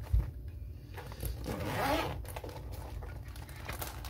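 Zipper on a soft carrying case being pulled open around the case in several rasping strokes, with a short handling knock just at the start.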